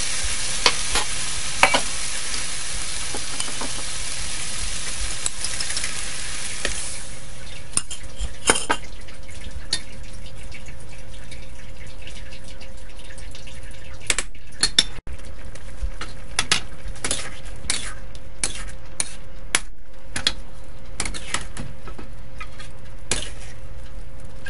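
Food sizzling loudly in a hot steel wok as tofu cubes go in over shrimp and vegetables, the sizzle dying down about seven seconds in to a quieter simmer in sauce. Through the rest, a metal spatula clicks and scrapes against the wok.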